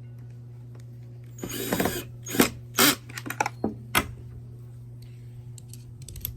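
Screws being tightened into the plastic housing of a Hoover SteamVac carpet cleaner during reassembly: a short scraping burst about a second and a half in, then a few sharp clicks and knocks of plastic parts.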